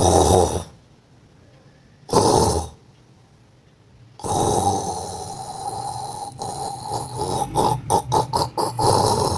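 A man's loud fake snoring. There are two short snores, then a long drawn-out snore from about four seconds in that breaks into a fast fluttering rattle near the end.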